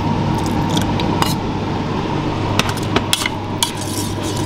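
Metal spoon clinking and scraping against a stainless steel saucepan as rice with chicken blood is stirred, a dozen or so scattered sharp taps over a steady low hum.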